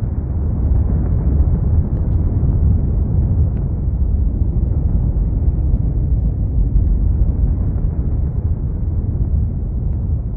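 A loud, steady, deep rumble with no distinct beats or tones.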